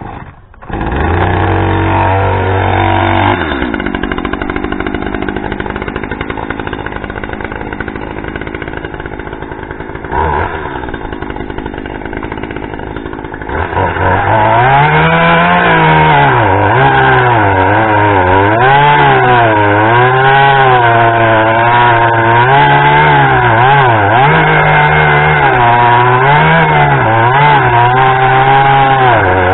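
Gas chainsaw starting up, catching under a second in and running at a fast idle that settles to idle. About fourteen seconds in it goes to full throttle, its revs rising and falling as it cuts through a firewood log.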